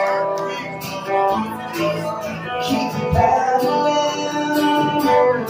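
Live guitar music: an acoustic guitar strummed in a steady rhythm, with an electric guitar playing along through an amplifier.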